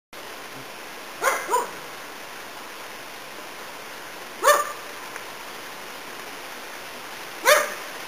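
Papillon dog barking: a quick double bark about a second in, then single barks about three seconds apart, over a steady background hiss.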